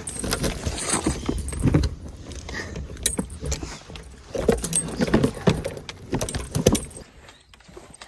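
Fishing tackle jangling and clinking, with footsteps through dry grass, in irregular noisy bursts while walking with a rod and a big bait lure. It dies down about seven seconds in.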